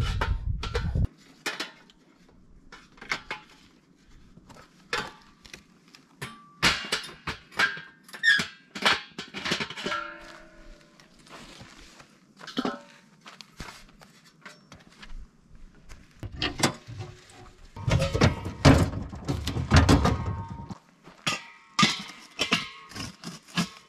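Irregular metal clanks, knocks and clicks from a portable propane fire pit being handled and set up: lid, steel bowl, hose fitting and propane tank. Background music comes in briefly at the start and again for a few seconds late on.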